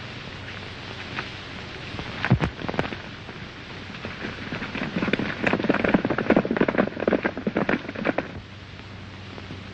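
Horses' hooves on hard ground: scattered steps and one loud knock early, then a dense clatter of hoofbeats from about five seconds in as the horses set off at a gallop, stopping short a little after eight seconds. A steady low hum runs underneath.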